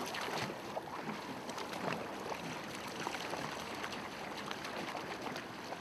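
Water washing and lapping around a small homemade wooden rowboat as it is rowed: a steady wash with a few faint splashes.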